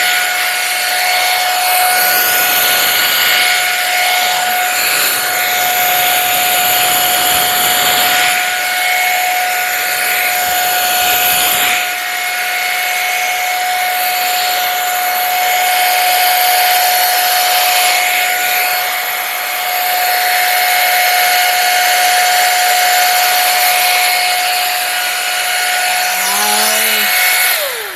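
Pro Hot hot air brush running: a steady motor whine over the rush of blown air. Near the end it is switched off and the whine falls away as the motor spins down.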